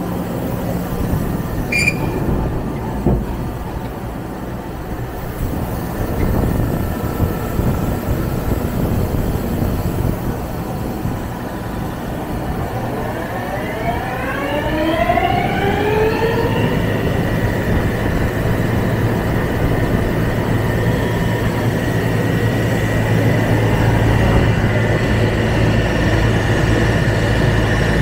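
Wheel repair lathe running with a steady mechanical noise; about halfway through its motor speeds up with a rising whine, then holds a steady whine and hum at speed.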